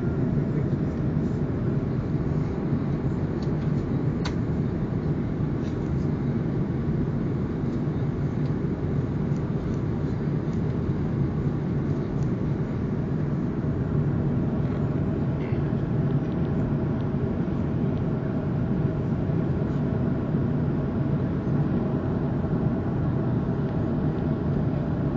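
Steady airliner cabin noise at cruise: the low, even roar of the jet engines and air rushing past the fuselage, heard inside the cabin.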